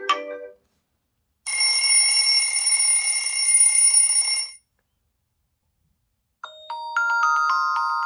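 Xiaomi Poco F3 ringtones played one after another: the tail of a melodic tone fades out, then a bright steady tone with a hiss beneath it sounds for about three seconds and stops suddenly. After a pause, a new tune of bright struck notes, like a marimba or glockenspiel, begins near the end.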